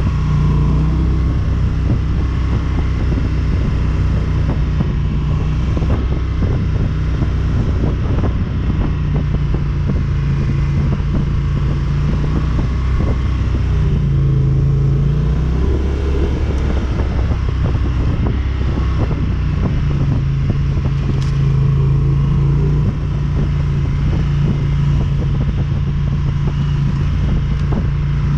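ATV engine running loud as the quad is ridden, its pitch rising and falling with the throttle, with frequent knocks and rattles throughout.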